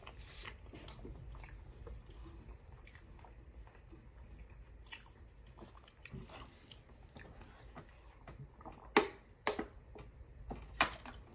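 A person chewing breaded chicken strips close to the microphone: soft, irregular crunching and mouth clicks, with a few sharper, louder clicks about nine seconds in and again near the end.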